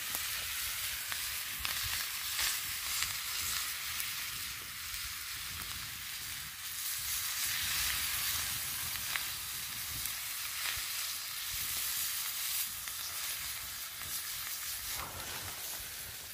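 Water spinach sizzling as it fries in a small wok over a wood fire, with a steady hiss and occasional light taps as it is stirred with a metal spatula.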